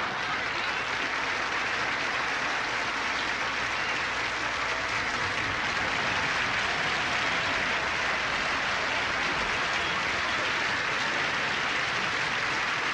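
Large audience applauding steadily, a long unbroken round of applause.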